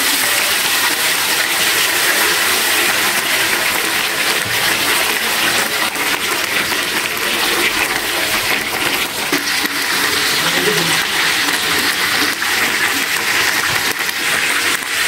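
Marinated chicken pieces deep-frying in hot oil in a wok: a steady sizzle with fine crackling spatter.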